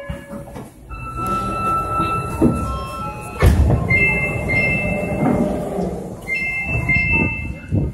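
Subway train and platform screen doors opening at a stopped Sapporo Toho Line train. A steady electronic tone sounds first, then a loud clunk about three and a half seconds in as the doors open. After that a two-note electronic door chime repeats twice over the low hum of the waiting train.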